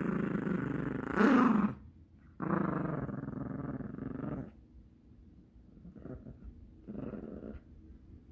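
Yorkshire terrier play-growling while tugging at a plush toy: two long growls, the first swelling louder about a second in, then a few shorter, quieter growls near the end.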